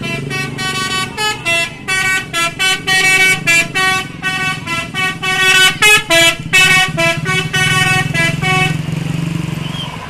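Bus telolet horn: a set of tuned horns on a passing coach played as a fast, jumpy melody of many short notes, stopping about nine seconds in. A bus engine drones underneath, growing louder near the end as the coach goes by.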